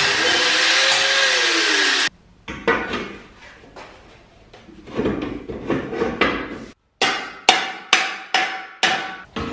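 Angle grinder cutting steel square tubing, its whine dropping in pitch as it bites, then cutting off abruptly about two seconds in. After that comes a string of sharp knocks with short ringing, spaced out at first and about twice a second near the end.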